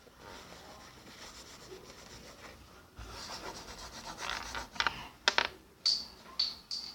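Rubbing and scraping of objects being handled, louder from about three seconds in, followed by several sharp clicks near the end, each with a brief high ring.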